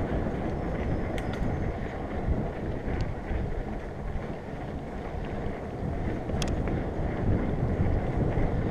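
Wind rushing over the microphone and tyres rolling over a dirt trail as a mountain bike rides along, with a few light clicks and rattles from the bike.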